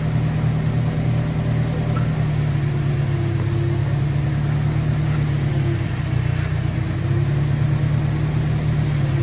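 Forklift engine running steadily under load as it handles the truck cab. A faint high hiss comes and goes about three times.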